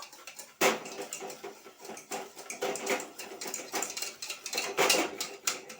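Hand beater rapidly whisking egg whites and sugar in a bowl: a fast, uneven rattle of clicks and scrapes as the mixture is beaten until it turns white and frothy.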